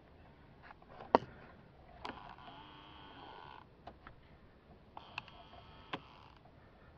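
Temperature blend-door actuator motor in a 2000 Chevrolet 1500's heater box whirring faintly in two short runs of about a second and a half, with a few sharp clicks, the loudest about a second in. The shaft turns only a little while the whole motor shifts: an actuator that the mechanic takes to be worn out and sometimes unable to drive the door.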